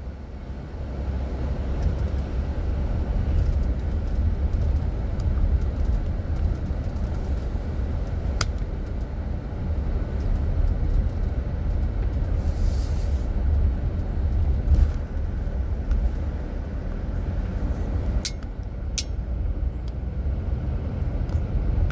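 A car driving, heard from inside the cabin: a steady low road-and-engine rumble, with a few light clicks.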